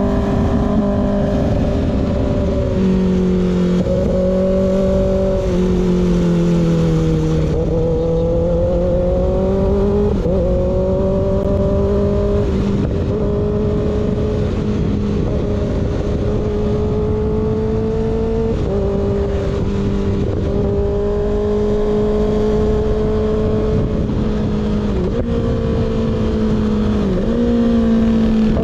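Kawasaki ZX-6R inline-four running through an unbaffled M4 GP19 slip-on exhaust, cruising at steady mid revs. The pitch dips and climbs slightly a few times with small throttle changes, over a steady rush of wind and road noise.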